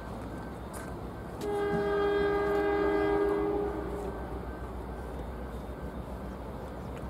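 Freight train locomotive's horn sounding one steady blast of about two and a half seconds.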